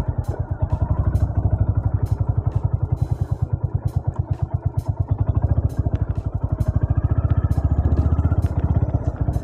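Honda CB350 RS's single-cylinder engine running with a rapid, even exhaust beat.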